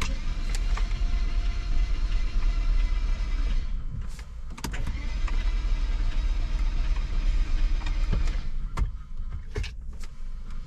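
BMW 335i's starter cranking its turbocharged straight-six, in two long attempts of about four seconds each with a short break between, without the engine catching. This is a no-start, with the battery being drained by the cranking.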